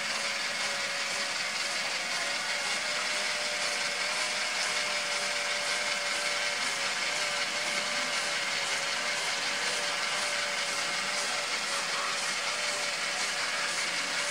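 Small electric motor whirring steadily, with a constant hum.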